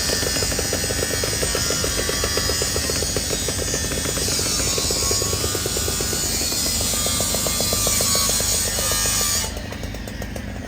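Power saw cutting through a metal roll-down security gate, a loud grinding with a rapid steady pulse. The cutting ends abruptly near the end, leaving the saw running more quietly.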